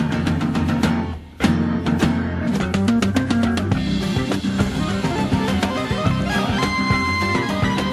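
Progressive rock from a 1974 studio LP, with a drum kit and guitar. The band drops out briefly about a second in and comes back hard on a drum hit, with a held high note near the end.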